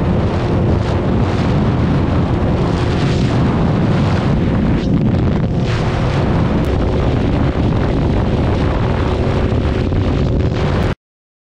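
Motorcycle engine running loudly, with wind buffeting the microphone; the sound cuts off suddenly near the end.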